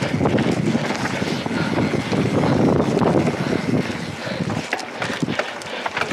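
Mountain bike ridden fast over a rough dirt trail: a steady rush of tyre noise and wind on the action camera's microphone, with many sharp rattles and clicks from the bike over bumps. It eases slightly about five seconds in.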